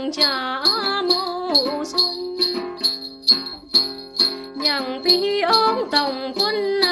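A woman singing a Tày then folk song, her voice wavering and bending between notes, accompanied by a plucked đàn tính lute and a steady beat of shaken jingling bells.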